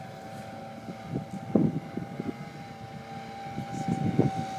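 Model Sopwith biplane flying past, its engine and propeller making a steady drone that holds one pitch. Twice, about a second and a half in and near the end, louder low rumbles rise over the drone.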